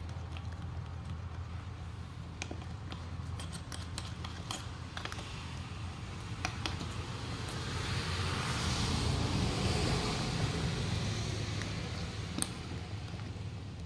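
Light metallic clicks and scraping from a small hand tool worked around the valve base of a truck inner tube, over a steady low hum. About eight seconds in, a broad rushing noise swells and fades over a few seconds.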